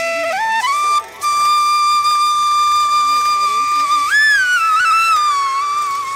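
Background music: a flute melody that climbs in quick steps, breaks off briefly about a second in, then holds one long note with a short upward bend about four seconds in.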